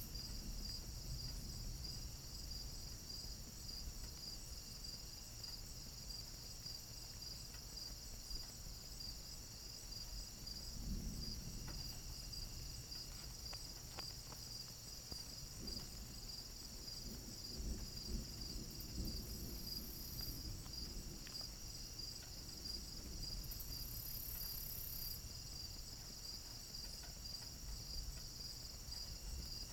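Crickets chirping in a steady, fast-pulsing chorus. A higher insect buzz joins twice for a second or so, and a faint low rumble comes and goes underneath.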